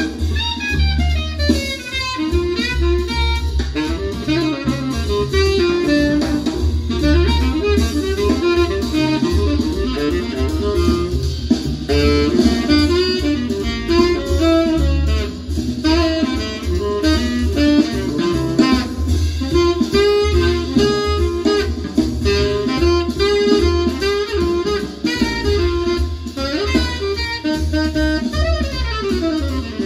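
Jazz with a saxophone lead and a steady bass line, played back through a pair of vintage Holimar 3/8 loudspeakers driven by a NAD 304 amplifier and heard in the room.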